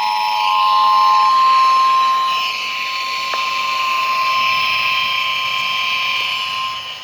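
Emergency Alert System attention signal received over FM radio: the two-tone signal cuts off about a second in, while a single steady tone just above it carries on over a hiss.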